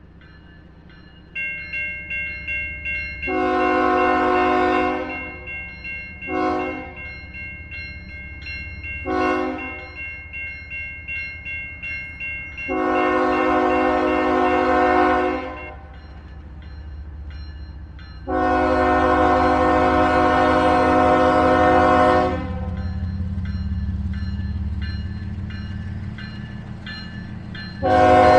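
Diesel locomotive air horn sounding several tones at once, in a series of blasts: a long one about three seconds in, two short ones, a long one about halfway, a longer one a few seconds later, and another starting near the end. A bell rings about two and a half times a second from about a second in to about halfway, over the low rumble of the locomotive's engine.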